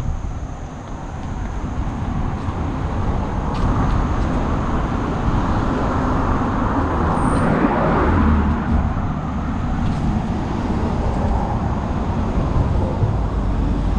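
Road traffic: a motor vehicle passes close by, its tyre and engine noise building to a peak about halfway through and then fading, over a steady traffic hum.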